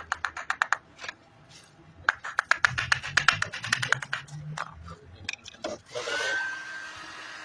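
Rapid runs of sharp clicks, then about six seconds in an exhaust fan's electric motor switches on, its whine rising quickly and settling into a steady hum.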